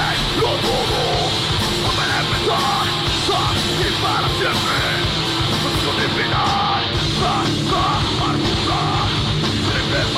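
Loud heavy rock music from a full band, with yelled vocals over a steady wall of drums and instruments.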